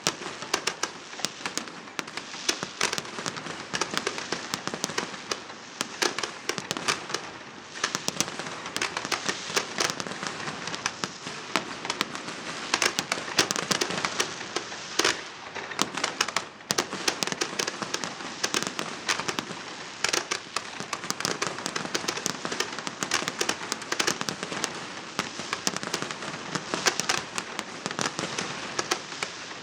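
Fireworks going off continuously: a dense, unbroken barrage of sharp cracks and pops, many a second.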